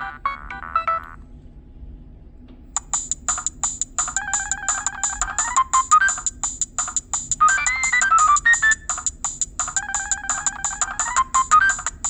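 Nokia 6010 mobile phone playing its preloaded ringtones through its own speaker. One electronic ringtone ends about a second in. After a short pause, the next starts with a fast, even ticking beat under a short melody that repeats.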